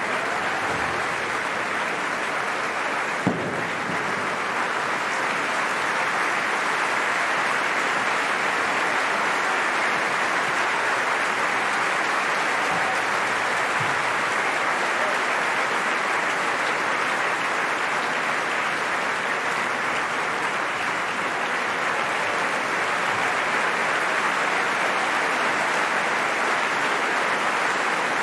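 Large theatre audience applauding, dense and steady, with one sharp click about three seconds in.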